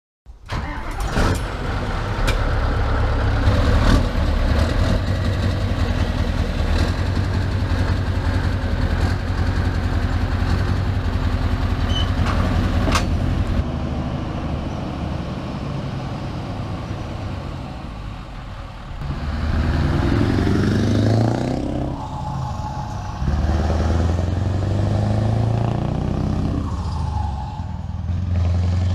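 Scania R580 truck's V8 diesel engine running steadily for the first half. In the second half it pulls away under load, its note climbing and dropping back with each gear change.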